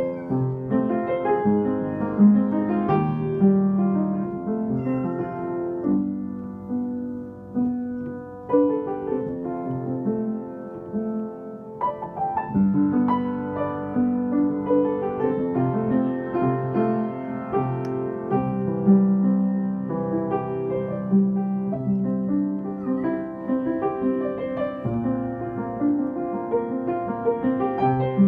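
Upright piano played by hand: a flowing piece of single notes over held chords in the middle register, with a brief lull about eleven seconds in before the playing picks up again.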